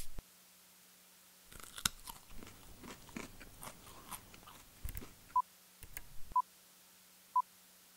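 Irregular clicks, knocks and rustles of hands working the knobs and switches of a studio mixing console, then short beeps of one pitch sounding evenly once a second, three times.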